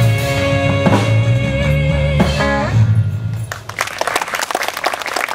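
A live band's final chord, with electric guitar ringing out over the drums, ends the song about three seconds in. The audience then starts applauding.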